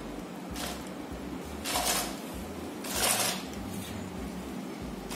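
About four short bursts of whirring from a small Bluetooth-controlled robot car's servo and gear motors as it drives and works its servo-held scissor arm.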